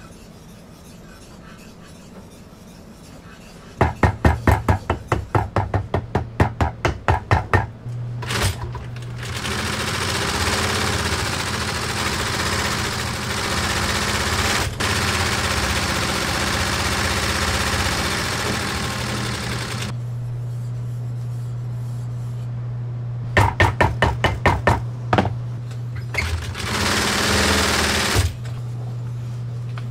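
Post-bed leather sewing machine stitching a boot upper over the steady hum of its motor: a run of separate stitches at about four a second, then a long fast run of about ten seconds where the stitches blur into one continuous rattle. Near the end comes another short run of separate stitches and a brief fast burst.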